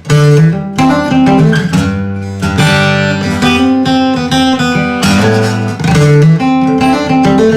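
Steel-string dreadnought acoustic guitar with a red spruce top and rosewood back and sides, played solo: chords strummed and picked in a steady rhythm, each stroke ringing out.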